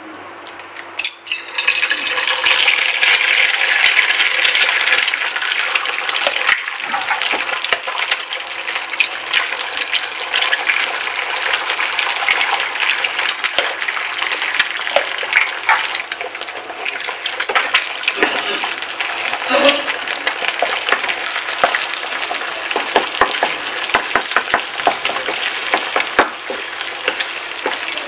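Two eggs frying in hot oil in a nonstick pan, a loud sizzle full of crackles and pops that jumps up about a second in as the eggs hit the oil.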